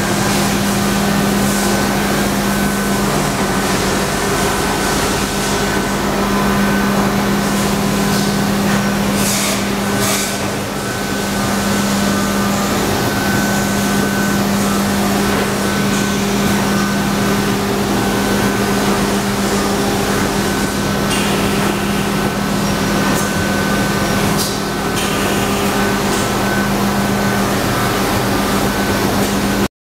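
Steady machine hum of a powered-up CNC vertical machining center and shop equipment: a strong low drone with a faint high whine over it. Brief hissing noises come about ten seconds in and again near twenty-five seconds.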